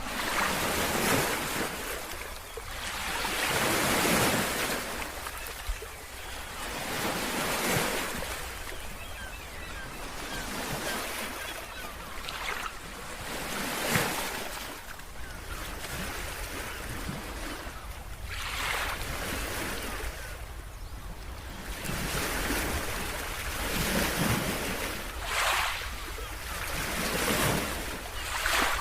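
Ocean surf: waves breaking and washing up the shore, the rush rising and falling every few seconds, with wind on the microphone.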